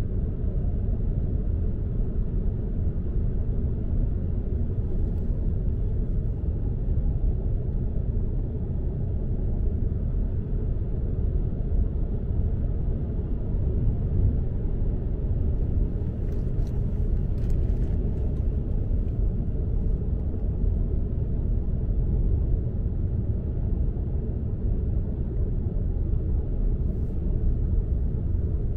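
Steady low rumble of a car driving: road and engine noise with no change in pace.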